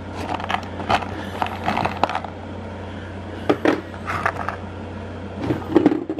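Small rough opal and clay chips clicking and clinking against each other and a plastic gold pan as fingers rake through them, in several short bursts, over a steady low hum.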